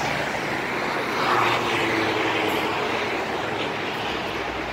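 Road traffic going past on a busy multi-lane street, one vehicle passing close and loudest about a second in, its engine note falling slightly as it goes by.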